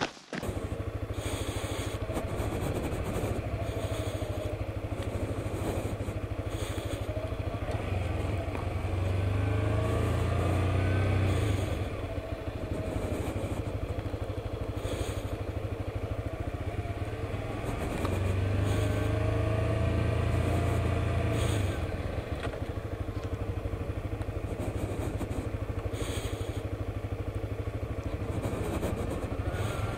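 Suzuki GSX-S125's single-cylinder four-stroke engine running while the bike is ridden, heard from on board. Its pitch rises and falls with the throttle, and it gets louder for a few seconds about a third of the way in and again past the middle.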